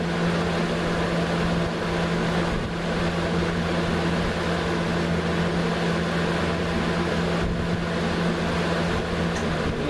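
A 1999 Lasko 3733 box fan running on high: a steady motor hum under a loud rush of air.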